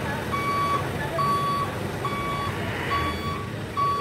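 Box truck's reversing alarm beeping, one steady mid-pitched beep a little more often than once a second, over a low rumble.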